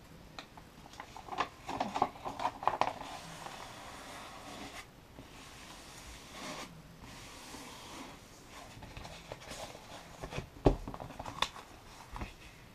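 Diamond painting canvas and its glossy plastic sheeting handled by hand on a table: the canvas is turned over and smoothed flat, with intermittent rustling and crinkling and a couple of soft knocks near the end.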